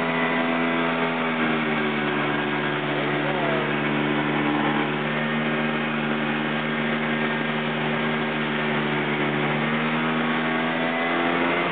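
Snowmobile engine running at a steady speed, its pitch dipping slightly about a second and a half in and rising a little near the end.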